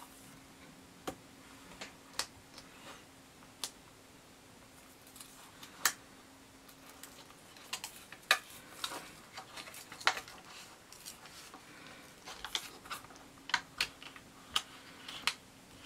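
Irregular sharp clicks and crackles of a thin PEX build sheet being handled, its adhesive backing liner picked at and peeled back along the edge. The clicks come more thickly in the second half.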